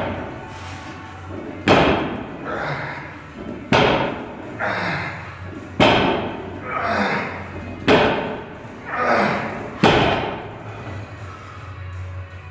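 A 200 kg barbell on bumper plates set down hard on a wooden lifting platform five times, about two seconds apart, one deadlift rep each, with the lifter grunting with effort after each impact.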